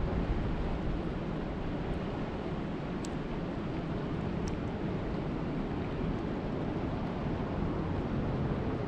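Steady rushing water noise at a lake, heavy in the low end, with wind buffeting the microphone. A couple of faint, sharp high ticks sound midway through.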